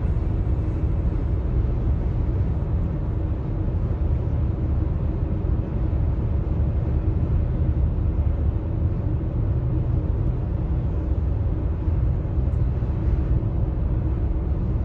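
Steady road noise inside a car's cabin at highway speed: a low rumble of tyres and engine, with a faint steady hum.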